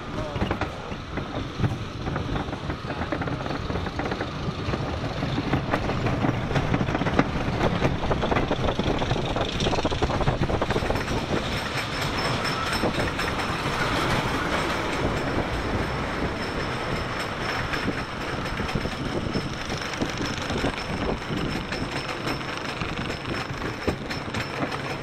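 Wooden roller coaster train rolling out of the station and climbing the chain lift hill, with a steady clattering and clicking from the lift chain and the train on the wooden track. A faint high steady whine joins about halfway up the lift.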